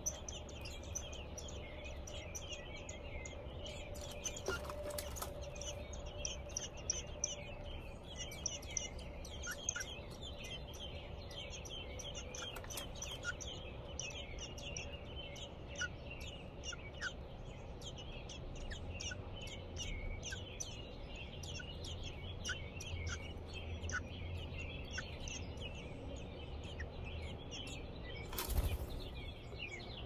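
American robin nestlings begging at the nest: a dense, continuous run of short, high chirps, with a brief rustle of noise near the end.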